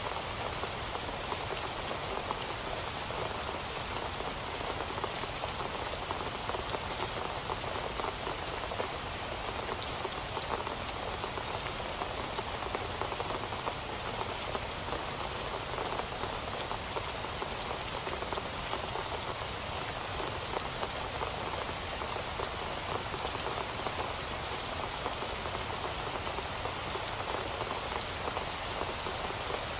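Steady rain falling and pattering on a surface, an even hiss of many small drops with no change in intensity.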